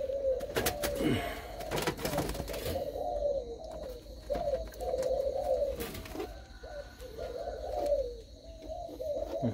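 Spotted doves cooing over and over, several birds overlapping in short phrases, with a few sharp knocks among them.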